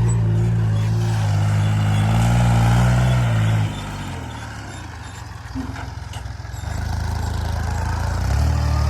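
Heavy diesel engine of a tractor or backhoe loader running hard, then dropping away sharply about three and a half seconds in. It picks up again near the end.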